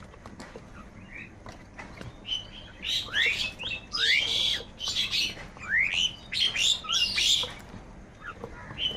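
Several crows calling over one another in a quick run of harsh calls, busiest from about two seconds in until near the end, with only scattered calls at the start and close.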